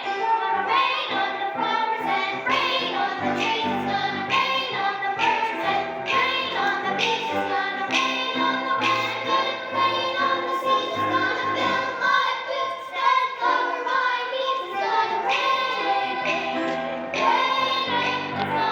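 Children singing a song together with musical accompaniment.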